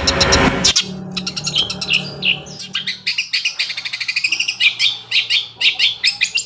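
Long-tailed shrike (cendet) singing a fast, varied song. It opens with a harsh rasping burst, then runs into rapid trills and strings of sharp repeated high notes.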